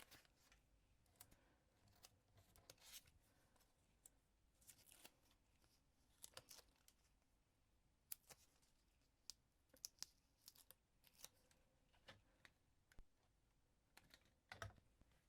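Faint, scattered snips of scissors cutting card, with crisp rustles of the paper pieces being handled between cuts.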